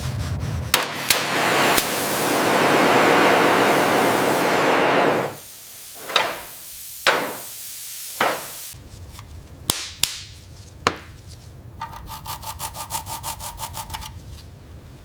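Workshop tool sounds: a few seconds of steady abrasive rasping like sawing or sanding, then several separate sharp knocks, then a fast, even run of clicks, like a ratchet.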